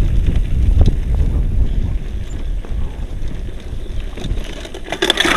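Wind buffeting the microphone and a mountain bike rattling over a rough trail while riding: a loud low rumble with scattered clicks and knocks, and a louder burst of rattling about five seconds in.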